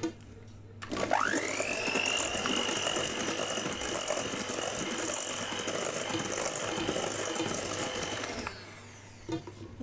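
Ikon electric hand mixer switched on about a second in, its motor whining quickly up to speed and then running steadily as the beaters whip cake batter in a steel bowl. It is switched off shortly before the end.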